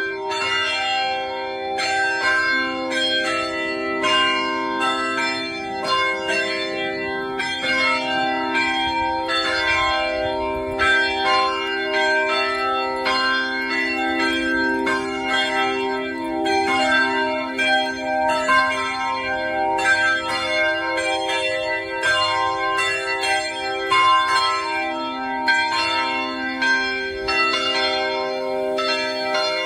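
Church bells ringing a peal: rapid, evenly paced strikes whose tones ring on and overlap.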